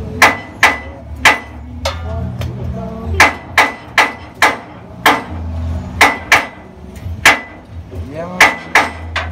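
Hammer striking the exhaust pipe under a BMW 320i, knocking at it during a resonator delete: about fifteen sharp metallic blows at an uneven pace, some in quick pairs, each with a short ring.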